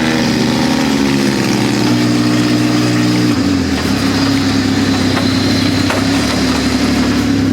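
ATV engine running under way, holding a steady pitch, then dropping to a lower steady note about three seconds in.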